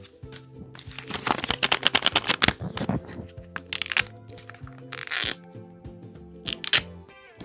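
Background music over the crackling and crinkling of handmade paper and tape being handled and opened. The crackling is densest in the first few seconds, with shorter bursts later.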